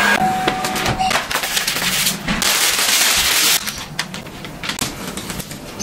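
Hand spray bottle misting water onto car window glass: a run of quick spritzes, then a hiss of spray lasting about a second in the middle, followed by quieter scattered clicks.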